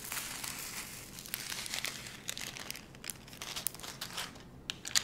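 Small plastic bag of diamond painting drills crinkling as it is handled and opened, with scattered light clicks.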